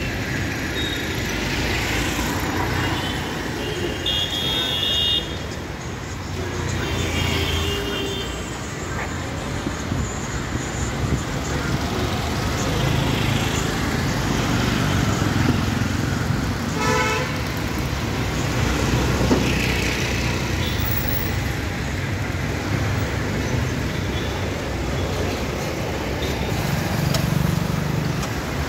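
Busy street traffic of auto-rickshaws, motorbikes and cars running past, with vehicle horns honking a few times: about 4 seconds in, again near 8 seconds, and a short one near 17 seconds.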